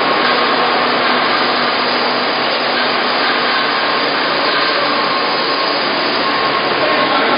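Steady, loud noise of running processing-plant machinery, with a faint steady hum inside it.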